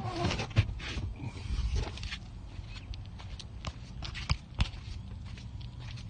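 Handling and movement noises of a person getting out of a car's footwell and walking round to the engine bay: scattered knocks, scuffs and footsteps, opening with a short falling grunt.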